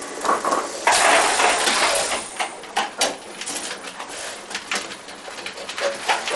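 Milking-parlour equipment at work: repeated sharp metal clanks and clatters, with a hissing rush about a second in.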